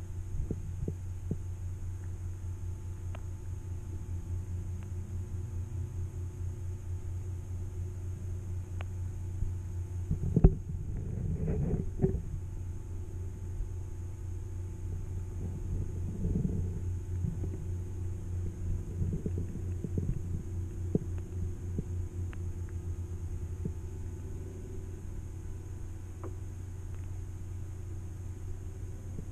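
Underwater sound through a GoPro held below the surface: a low steady hum with a fast throbbing pulse and scattered faint clicks, with a louder knock and a brief rustle about ten seconds in.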